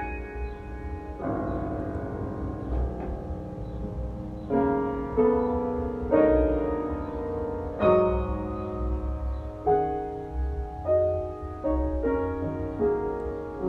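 Solo piano improvisation: slow, sparse chords and notes struck about once a second and left to ring out, with a steady low hum underneath.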